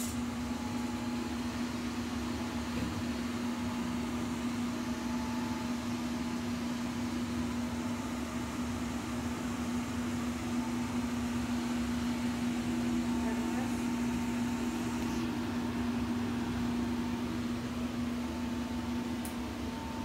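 Dayton 1TDU2 blower of a homemade laminar flow hood running steadily, pushing air through its HEPA filters: a steady low hum over an even rush of air.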